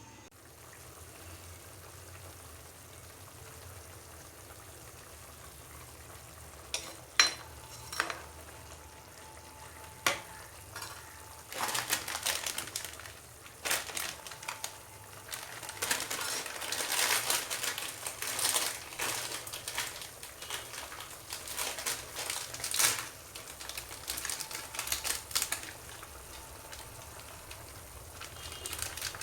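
Noodles being eaten close to the microphone: a few sharp clicks from about seven to ten seconds in, then repeated noisy bursts of slurping and chewing.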